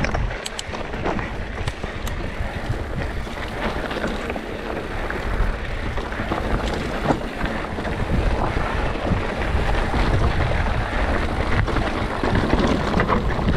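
Enduro mountain bike riding down a rocky trail: tyres crunching and clattering over loose stones and the bike rattling, with wind buffeting the microphone. It grows louder about halfway through.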